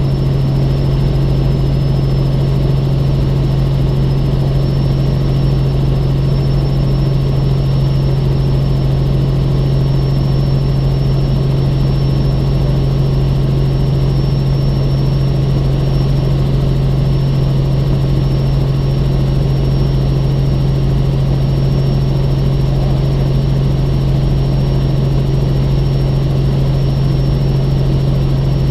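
Robinson R44 Raven II helicopter, with its six-cylinder Lycoming IO-540 engine and rotors, making a loud, unchanging drone, with a thin steady high whine above it.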